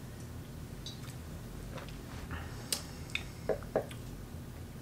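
Two people sipping wine from glasses, with faint slurping and mouth sounds over a quiet room hum. A few small clicks and smacks come in the second half.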